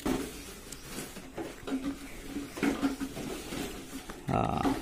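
Paper pages of an old bank passbook being handled and turned, with scattered faint chicken calls in the background and a short, louder call near the end.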